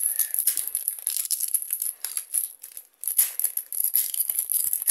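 Foil wrapper of a Pokémon trading card booster pack crinkling and tearing as it is ripped open by hand, a dense crackle that breaks off briefly about three seconds in and then carries on.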